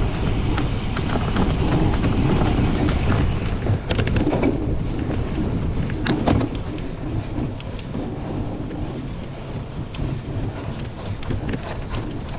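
Wind rushing over the microphone with the rumble and rattle of a cyclocross bike riding over rough ground, with scattered clicks and knocks. The rumble eases a little about six seconds in.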